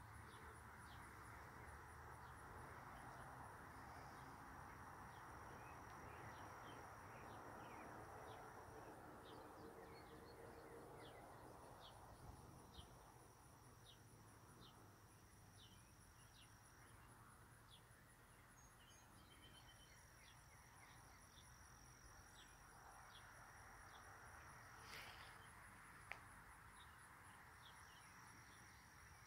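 Faint summer outdoor ambience of insects trilling: a steady, high, pulsing trill that carries on throughout, and a second high buzz that comes and goes. Short high chirps repeat about once a second over a soft background hum.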